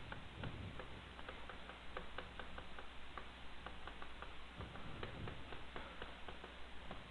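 Faint, light ticks at uneven spacing, several a second, over a low steady hum.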